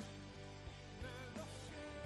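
Background music: a song with a steady beat and a sung vocal line that comes in about a second in.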